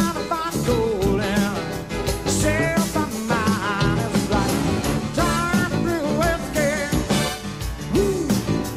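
Live rock-and-roll band recording with a lead voice singing over a steady beat.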